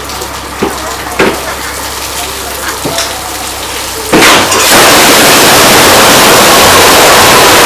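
Kitchen clatter: scattered clinks and knocks of utensils or dishes. About four seconds in, a loud, steady rushing hiss starts and carries on.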